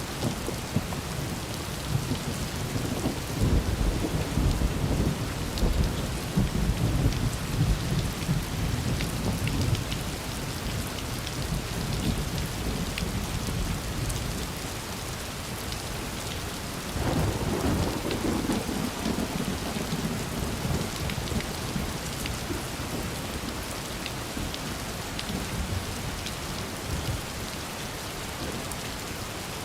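Steady rain falling, with thunder rumbling from a few seconds in and again starting suddenly about halfway through, then fading away.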